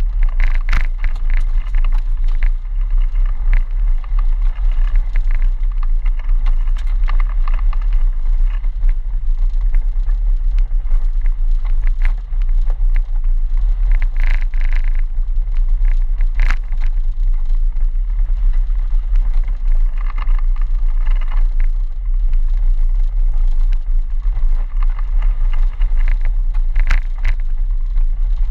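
Land Rover Defender 90 driving through deep mud and water-filled ruts, heard from inside the cab: a steady low rumble of engine and drivetrain, broken several times by bursts of splashing as mud and water spray against the body, the loudest about halfway through.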